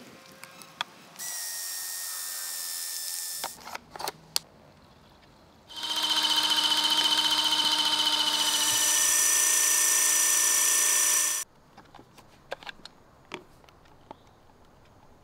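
Electric water pistol's motor whirring in two runs: a short one about a second in and a louder one lasting about five seconds with a shift in pitch partway through. A few plastic clicks come between and after the runs.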